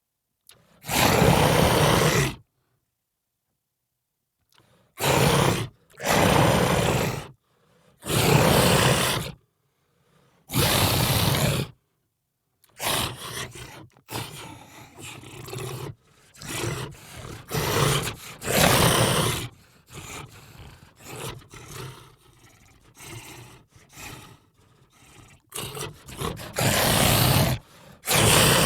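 Monster roar sound effects: a series of separate roars, each about a second long with short silent gaps, then a denser run of shorter roars and growls over the second half.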